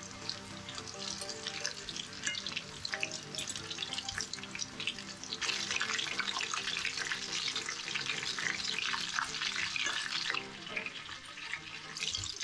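Breaded carp strips deep-frying in hot oil: a steady crackling sizzle that grows louder for about five seconds in the middle.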